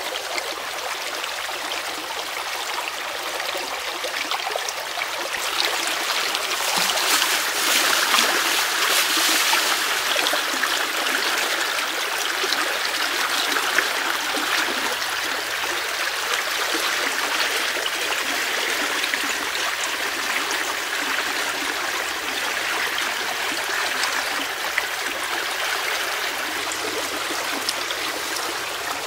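Shallow, fast-running stream trickling and rushing over a muddy, reedy bed, a steady sound that swells louder for a few seconds about a quarter of the way through.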